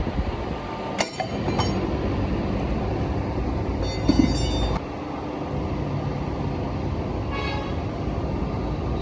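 Hydraulic rebar cutting and bending machine running with a steady mechanical drone. Steel rings out three times: a sharp clang about a second in, a longer ring around the middle, and a fainter one near the end.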